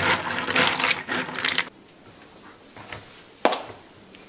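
Paper towel scrunched and rubbed through damp pumpkin seeds in a plastic colander: a dense, crackly rustle of many small clicks that stops about one and a half seconds in. A single sharp click follows about three and a half seconds in.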